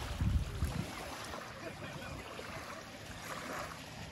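Small waves lapping gently at the water's edge, a steady wash, with wind buffeting the microphone in the first second.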